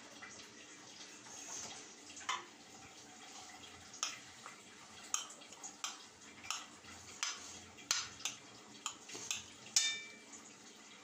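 Metal spoon clinking and scraping against a plate while mixing rice, in irregular taps about every half second to a second from about two seconds in. One sharper clink near the end rings briefly.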